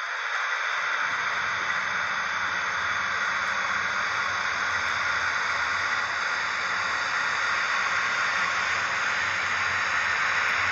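Piko H0-scale BR 194 model electric locomotive pulling away with a freight train: a steady loud hiss, the blower sound of the sound-equipped model, with a low rumble of the model's motor and wheels on the track coming in about a second in as the train starts rolling.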